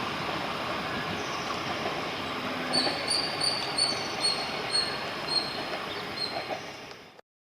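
A passenger train hauled by a WDP4D diesel locomotive, running along with a steady rumble. From about three seconds in, a run of short high-pitched chirps comes about two to three times a second. The sound cuts off abruptly near the end.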